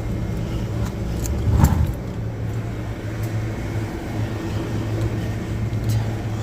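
Steady low mechanical hum from the walk-in cooler's condensing unit, with one short clunk about a second and a half in.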